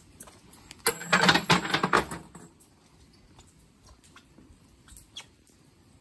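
Coins tossed into a wooden shrine offering box: a sharp first strike about a second in, then about a second and a half of clattering.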